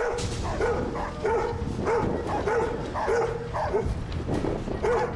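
Dogs barking aggressively in a confrontation, a steady run of sharp barks at about two a second, with a brief pause near the end. A steady low rumble sits underneath.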